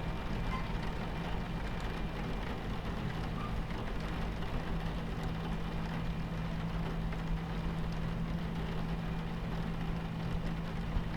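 Steady low rumble of a train running, with a constant low hum, and rain on the window as fine ticking over a soft hiss.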